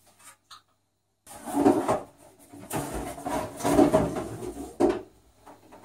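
After about a second of dead silence, cardboard and packing pieces scrape and rub as they are pulled out of a cardboard box, in several loud swells, with a sharp knock near the end.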